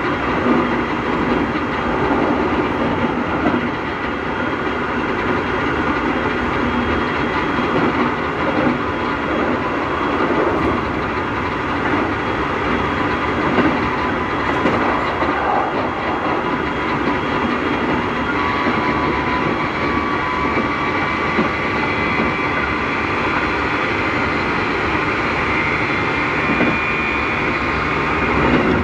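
Keikyu New 1000-series electric train car heard from inside, running along the line: wheels clacking over rail joints under a steady whine from its Mitsubishi IGBT inverter-driven traction motors. The motor noise on this set is abnormally loud, which the uploader puts down to motors swapped in from another set.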